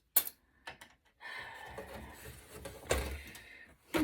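A sharp click, then a long scrape of metal sliding against metal with a knock about three seconds in, as a board or power supply is slid out of the server chassis.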